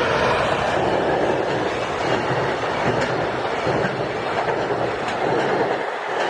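Train passing the level crossing close by: a steady rumble and rush of wheels on rail, with wheels clicking over the rail joints.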